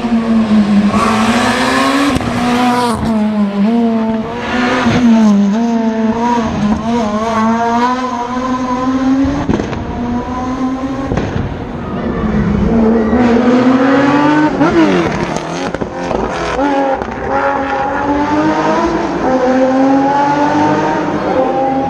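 Rally car engine at high revs, its note climbing and dropping again and again through gear changes and lifts.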